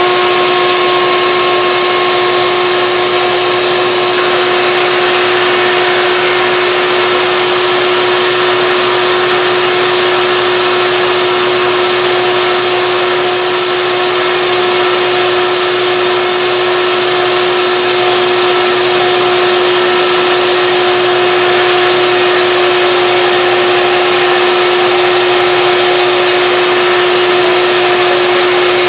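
Handheld rotary tool with a sanding drum running at steady high speed: a loud, even high whine. Scratchy grinding crackles come and go in the middle stretch as the drum sands down a glued-in wooden plug in a guitar headstock.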